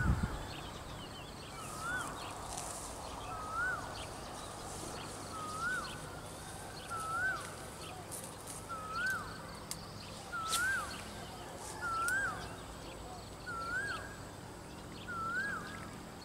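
A bird calling over and over, a short rising-then-falling note repeated about every second and a half to two seconds, with faint chirping behind it.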